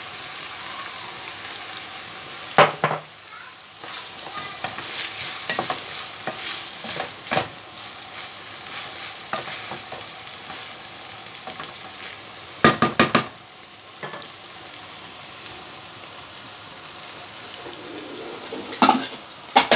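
Ground-beef tomato sauce, thinned with a little water, sizzling steadily in a nonstick frying pan while a wooden spoon stirs it. The spoon knocks sharply against the pan about three seconds in, several times in quick succession near the middle, and again near the end.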